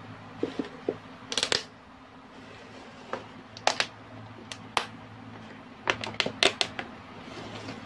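Irregular sharp clicks and taps of small plastic pet enclosures being handled, some coming in quick clusters, over a low steady hum.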